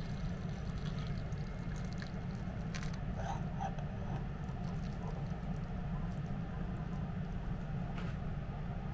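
Ramen noodles and broth pouring from a pot into a ceramic bowl: a soft, wet pour with a few faint clicks, over a steady low hum.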